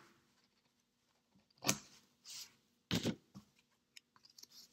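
Scissors snipping through paper: a few separate cuts, one a little under two seconds in and a pair around three seconds in, with faint paper handling between.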